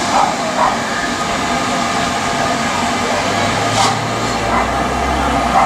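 LMS Stanier Class 5 steam locomotive running slowly in towards the platform under steady wind noise on the microphone, with a few soft knocks and a low hum setting in about three seconds in.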